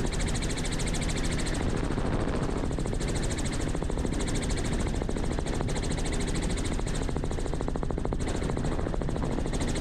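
Robinson R44 Raven II helicopter running steadily, its rotor beating in a fast, even pulse over the drone of its six-cylinder piston engine.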